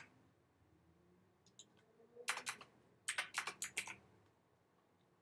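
Typing on a computer keyboard: a few scattered keystrokes about a second and a half in, then two quick runs of keystrokes between about two and four seconds in.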